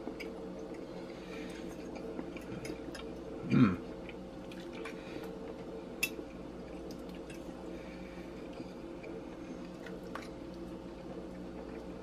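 Quiet chewing and small mouth sounds of a man eating roast beef, with a fork clicking against the plate, sharpest about six seconds in. About three and a half seconds in comes a short falling 'mmm' of enjoyment. A steady low hum runs underneath.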